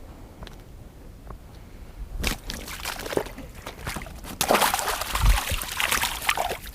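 Water sloshing and splashing close by, starting about two seconds in and growing busier from about four and a half seconds, with many small clicks and splashes.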